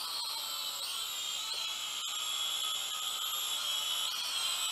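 Syma X5UW quadcopter hovering, its four brushed motors and propellers giving a steady high-pitched whine. The pitch rises briefly about one and one and a half seconds in as the motor speed adjusts.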